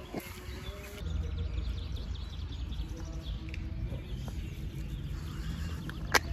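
Outdoor park ambience: a steady low background rumble with faint bird chirps. A single sharp click comes near the end.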